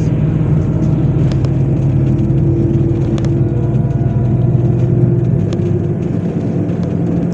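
MAZ 103 city bus's diesel engine running while under way, heard from inside the passenger cabin: a steady low drone with road noise and a few light rattling clicks. The deepest rumble eases about five and a half seconds in.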